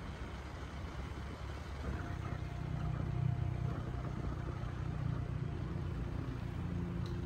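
Steady low rumble of a running vehicle, growing a little louder about two seconds in.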